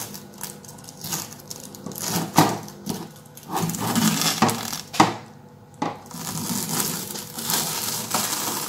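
Masking tape being peeled off the border of a painted canvas: a dry crackling peel in two longer stretches with a few sharp clicks.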